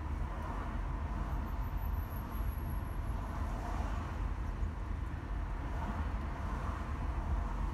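Car driving on city roads: a steady low rumble of tyres and engine.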